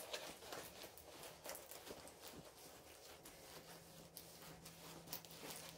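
Faint rustling and light handling noises of a diamond painting canvas being rolled up, with a faint steady low hum coming in about halfway.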